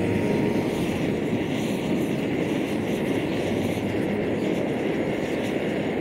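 Portable camping stove burning under a cooking pot: the steady hiss of the burner flame.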